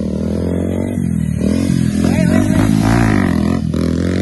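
Motorcycle engine running on the move, its pitch rising and falling several times as the throttle is opened and closed.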